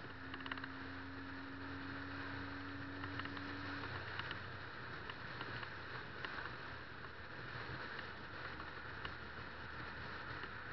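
Wind and road noise on a motorcycle-mounted camera riding along a highway at speed: a steady hiss with a low rumble beneath it. A steady low hum holds for about the first four seconds, then stops.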